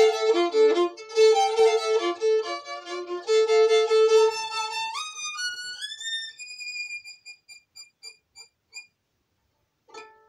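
Solo violin, unaccompanied, playing a quick run of bowed notes, then sliding up to a high note about halfway through. The high note is repeated more and more softly until it dies away, and a brief faint sound comes near the end.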